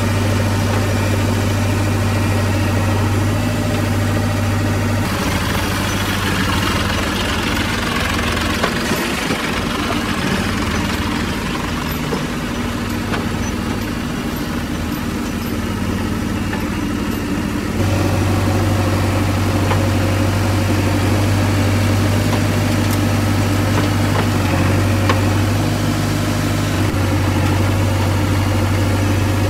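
Diesel engine of a JCB 3DX backhoe loader running steadily, a low even hum heard close to the machine. From about five seconds in until about eighteen seconds the sound changes to a noisier, more open engine sound, fitting a tractor running as it tips its trailer of mud.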